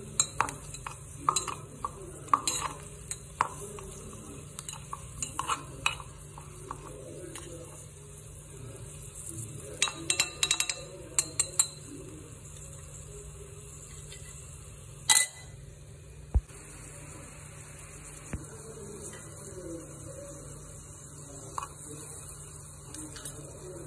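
Small metal spoon stirring chopped onion in a miniature aluminium pot, clinking and scraping against the metal in a string of light clinks. The clinks are thickest in the first half, with one sharper knock about fifteen seconds in.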